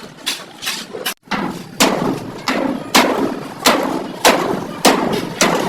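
Hammer blows on sheet-metal bodywork, about one to two strikes a second, each with a short metallic ring, as a dent is beaten out. A brief break in the strikes just after a second in.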